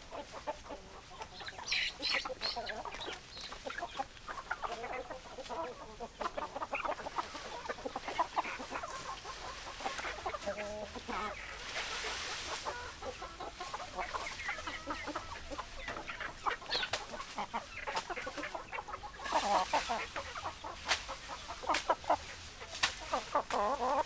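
Several hens clucking, with short scattered calls throughout and a busier, louder stretch of clucking about three-quarters of the way through.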